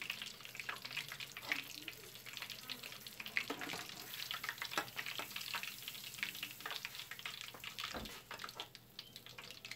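Fish deep-frying in a pot of hot oil: a steady sizzle full of irregular crackles as a metal spoon moves the pieces through the oil. A single sharp knock sounds about eight seconds in.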